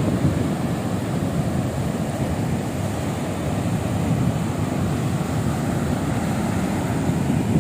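Strong wind rumbling on the microphone over surf breaking on the beach at a big high tide, a steady noise that rises and falls slightly.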